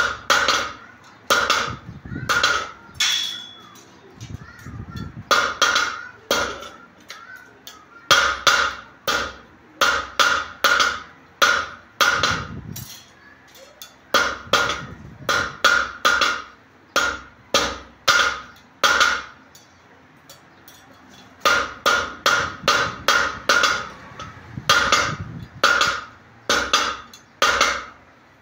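A hand hammer striking thin steel strips on a steel block anvil, each blow a sharp metallic clank with a short ring, coming in runs of several quick blows with brief pauses between.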